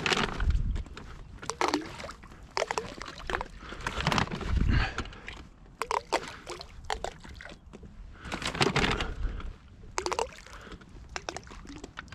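Handfuls of fishing bait splashing onto a calm lake surface beside an inflatable boat, in about a dozen short splashes at irregular intervals.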